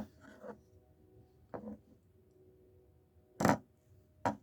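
Sharp clicks and knocks from a folding pocket knife being handled: a softer click about a second and a half in, the loudest about three and a half seconds in, and another just before the end.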